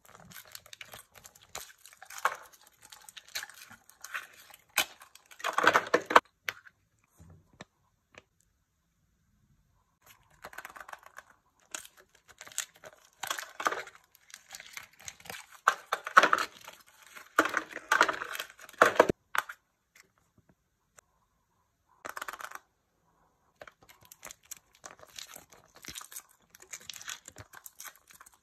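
Aluminium-foil wrapper being peeled and crinkled off a chocolate egg, in several spells of rustling with short pauses between.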